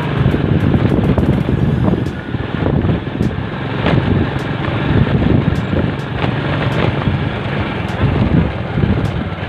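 Motorcycle running along a road, with wind buffeting the microphone.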